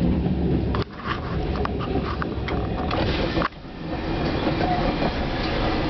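CN freight train passing close by: a loud, steady rumble with the clatter and clicks of wheels on the rails. The sound drops out suddenly and briefly twice, about a second in and about three and a half seconds in.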